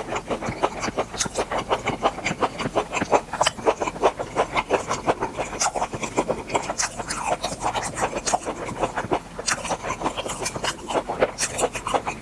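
Close-miked chewing of grilled beef intestines: a fast, continuous run of mouth clicks and smacks, several a second.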